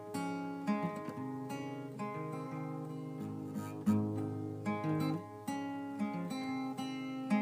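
Instrumental passage of a song, played on strummed acoustic guitar, with no singing.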